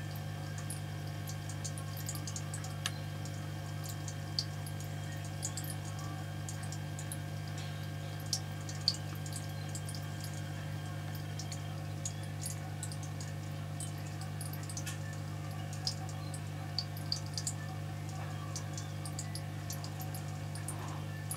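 Aquarium pump humming steadily, with scattered small ticks and pops of water dripping and bubbling in the tank.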